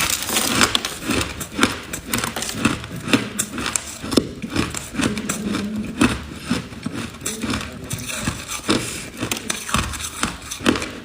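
Ice being chewed and bitten in the mouth close to the microphone: a rapid, irregular run of sharp crunches and cracks.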